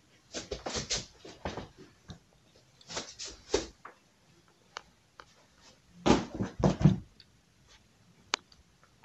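Scattered rustles, scuffs and light knocks of shoes and boots being picked up and handled, in small clusters with a louder group about six seconds in and a few single clicks between.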